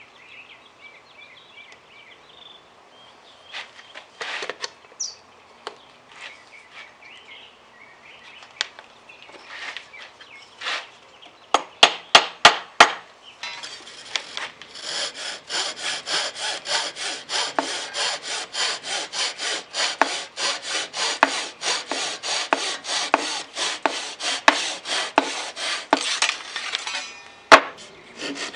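A hand tool worked back and forth on wood in quick, even strokes, about four a second, running through the second half. Before that come scattered knocks and a few sharp taps.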